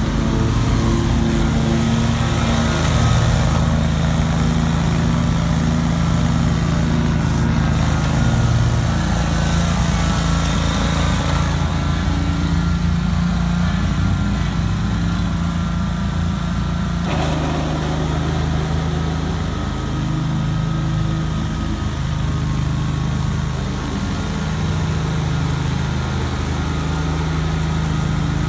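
Great Dane Super Surfer 52-inch stand-on mower's engine running under load with the blades cutting tall, thick grass, its note wavering slightly as it works through the heavy growth.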